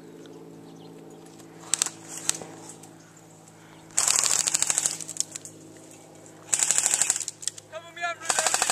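Airsoft rifles firing on full auto: a few quick single shots about two seconds in, then three rapid bursts of sharp clicking pops, each under a second long.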